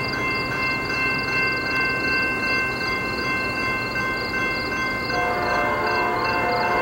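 Approaching Norfolk Southern freight train with C44-9W and AC44C6M diesel locomotives: a steady low rumble with several steady high tones above it, and more tones joining about five seconds in as it draws nearer. Rhythmic high chirping runs underneath throughout.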